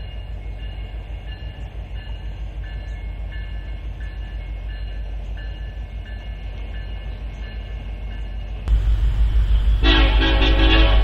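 Freight train rolling past with a steady low rumble and a faint ringing that repeats about twice a second. About nine seconds in, the sound jumps to a louder rumble, and near the end a locomotive's multi-chime air horn blows a long blast.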